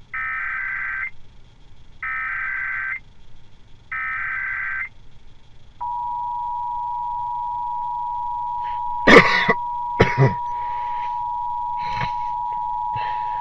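Emergency Alert System header: three one-second bursts of SAME data tones, a second apart, then the two-tone attention signal starting about six seconds in and held steady. A few loud, sudden noises cut through the attention tone around nine to ten seconds in.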